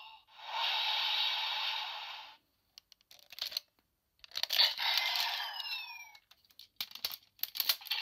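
Electronic sound effects from the DX Siren Striker toy's small speaker: a burst of hissing noise lasting about two seconds, then after a pause a short effect with sliding tones. Sharp plastic clicks and snaps come in between and near the end as the toy is handled and its parts are fitted together.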